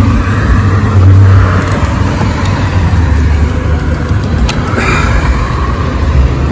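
Motor vehicle engine running close by, a steady low rumble.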